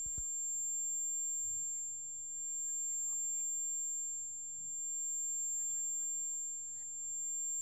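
A steady, high-pitched electronic sine tone that begins with a sharp click, swelling and dipping slightly every couple of seconds, over a faint low hiss.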